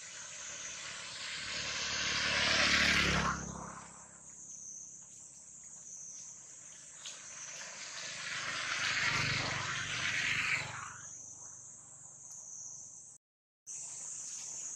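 Two vehicles passing by, each swelling up and fading away over a few seconds, the first about two seconds in and the second about nine seconds in, over a steady high-pitched insect chorus. The sound cuts out completely for a moment near the end.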